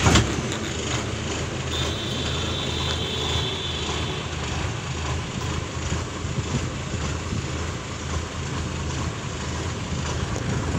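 Heavy truck engine running steadily at a low, even rumble, with a sharp knock right at the start.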